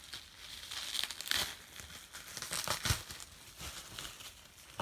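Packing material crinkling and tearing in irregular handfuls as a parcel is unwrapped, with a soft thump about three seconds in.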